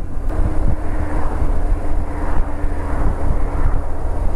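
BMW R1200RT motorcycle under way: steady riding noise of its boxer-twin engine's low drone mixed with wind noise on the microphone.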